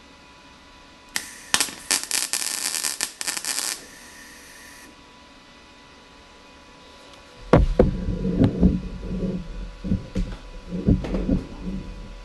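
MIG welder tack-welding a 1/8-inch steel filler rod onto the edge of a steel truck fender: a crackling arc that lasts about two and a half seconds. Later come several seconds of low thumps and rustling from handling at the fender.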